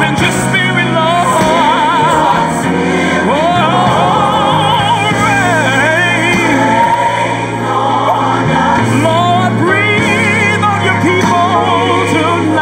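Gospel worship song playing: a singer holds long, wavering notes with vibrato and sweeping runs over steady, sustained low notes.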